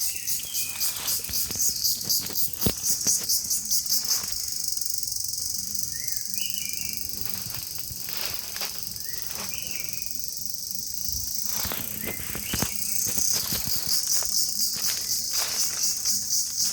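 Outdoor nature ambience dominated by a steady, high-pitched pulsing insect chorus, with a few short chirps and scattered clicks and rustles.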